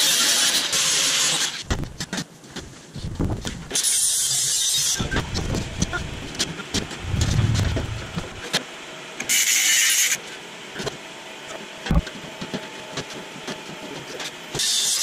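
Metalwork on a steel truck bed: loud hissing for about the first second and a half, then knocks and clanks of steel plate. Short bursts of hiss come about four seconds in, again about nine seconds in, and once more at the very end.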